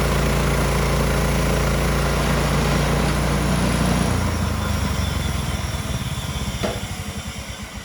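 Gas engine of a Woodland Mills HM126 portable bandsaw mill running steadily, then shutting down about four seconds in, its firing pulses slowing and fading as it coasts to a stop. A single sharp click comes near the end.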